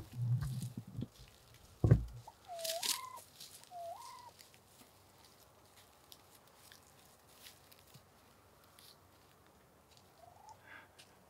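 Wild turkeys calling close by: two short rising calls about two and a half and four seconds in, the first with a brief raspy burst, and a faint call again near the end. A few low thumps come in the first two seconds, the loudest a sharp one about two seconds in.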